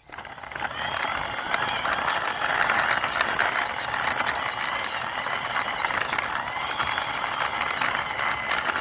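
Toy car's plastic wheels rolling as it is pushed along by hand: a steady rolling hiss with a fine rattle, starting about half a second in.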